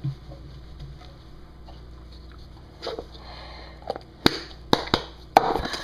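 A glass container handled close to the microphone: a brief rustle about three seconds in, then several sharp knocks and clinks over the next two seconds.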